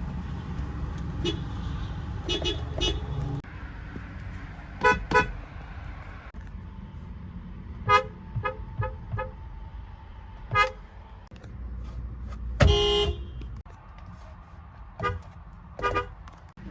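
Car horns giving about a dozen short toots, some in pairs or quick runs of three to five. One longer, louder horn blast lasts about a second. A steady low rumble runs underneath.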